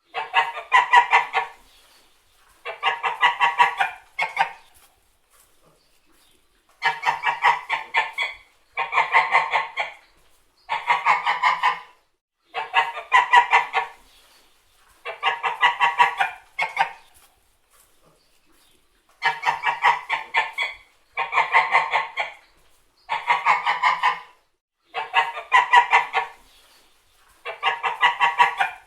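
White domestic geese honking in about a dozen bouts of rapid, pulsed calls, each bout a second or two long with short pauses between.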